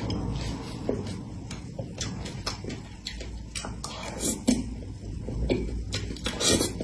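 Close-up eating sounds: a metal spoon scraping and clicking against a cream cake and its board, with wet mouth and chewing sounds. It is a string of short, irregular clicks.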